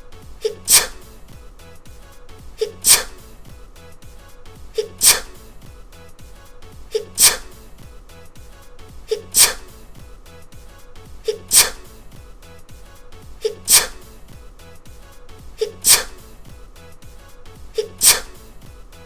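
The same sneeze repeated over and over, about every two seconds, nine times: each one a brief soft intake followed by a sharp "choo" burst.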